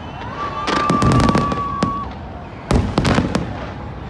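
Fireworks bursting in two quick volleys of sharp cracks and bangs, about a second apart. A steady high whistle is held for about a second and a half under the first volley.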